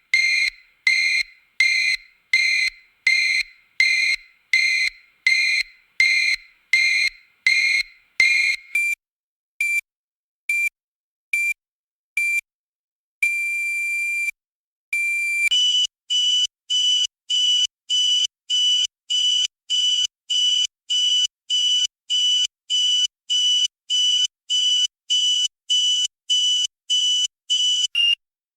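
Electronic emergency alarm running through several beep patterns: a beep repeating about one and a half times a second, then a few sparser short beeps, a single long held tone, and then a higher-pitched beep repeating about twice a second.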